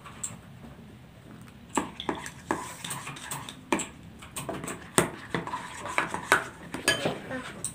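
Plastic spoons stirring thick glue-and-detergent slime in glass bowls, with irregular clinks and knocks as the spoons hit the bowls' sides.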